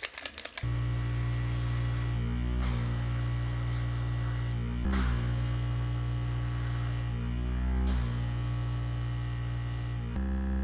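An airbrush compressor starts up under a second in and runs with a steady motor hum, while the airbrush hisses as it sprays black primer. The hiss stops briefly three times and again near the end as the trigger is let off between passes, with the compressor humming on.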